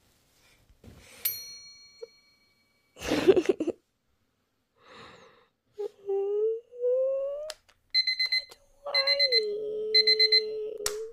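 Electronic alarm beeping in repeated bursts of rapid short beeps, starting about eight seconds in. Under the beeps, a long low drawn-out hum from a voice. A brief loud rustle comes about three seconds in.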